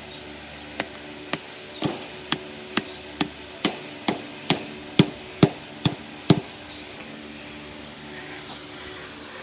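Hammer blows: about thirteen sharp strikes at roughly two a second, stopping a few seconds before the end.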